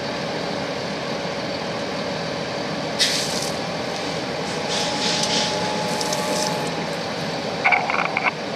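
Firefighting hose nozzle opened, the water stream hissing in a short burst about three seconds in and again in bursts a couple of seconds later, over a steady background noise.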